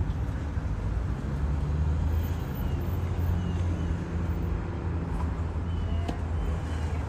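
Union Pacific diesel locomotive's engine running with a steady low drone as the locomotive moves past.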